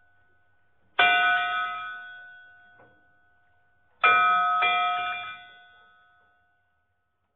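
A bell struck three times: once about a second in, then twice close together about four seconds in. Each stroke rings on and fades away over about two seconds.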